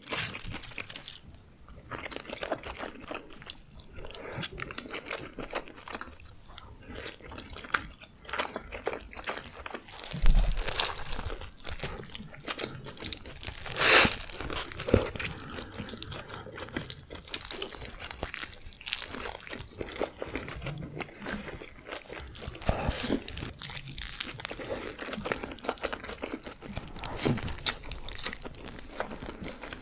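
Close-miked eating: crisp crunching and wet chewing, first of nacho tortilla chips, then of bites of a hamburger with lettuce. It comes as many small crackles and clicks, with louder crunches a little past the middle.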